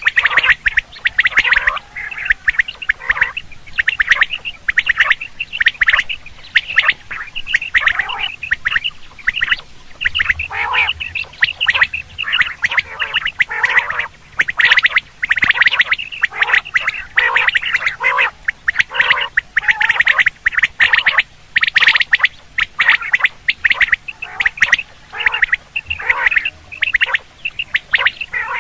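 Quail calling: a dense, unbroken run of short repeated calls, many overlapping, used as a hunting lure.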